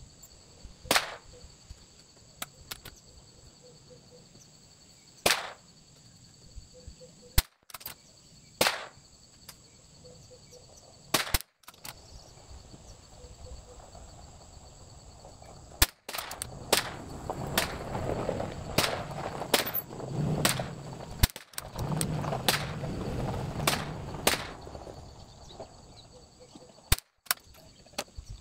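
Bergara BMR .22 LR bolt-action rifle firing single shots from a bench rest: a series of sharp cracks spaced a few seconds apart. Insects buzz steadily in the background.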